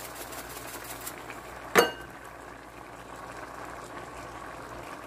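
A pan of mung bean stew simmering with a steady bubbling hiss. A little under two seconds in comes a single sharp clink, the loudest moment.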